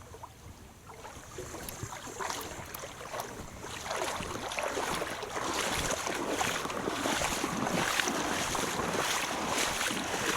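Water splashing and sloshing around a kayak, with many small clicks and knocks in it. It grows louder from a few seconds in, and wind buffets the microphone.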